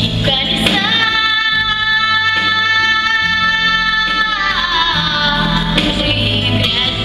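An eleven-year-old girl singing a pop song over instrumental accompaniment with guitar. About a second in she holds one long note for some three seconds, then slides down from it.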